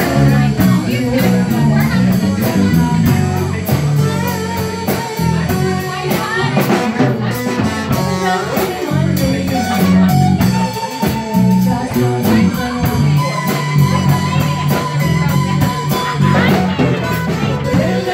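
A live band playing: electric guitar and bass guitar over a drum kit keeping a steady beat on the cymbals, with a woman singing into a microphone in places.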